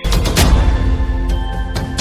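Background film score: dramatic music of held tones over a beat of heavy drum hits.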